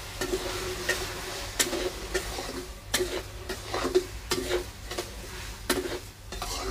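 Metal spatula scraping and clinking against a steel kadai as sugar and a little water are stirred together to start a sugar syrup, with irregular clinks that each ring briefly in the pan.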